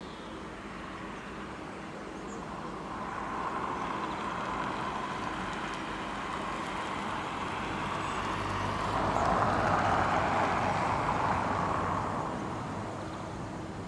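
A vehicle passing at a distance: a broad rushing noise that swells, is loudest about ten seconds in, then fades.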